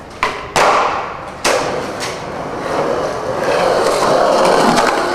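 Skateboard on concrete: three sharp clacks of the board striking the ground in the first second and a half, then the wheels rolling steadily.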